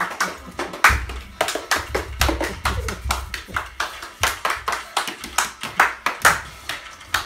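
Hands clapping in a quick, uneven rhythm, about three or four claps a second, with music playing underneath.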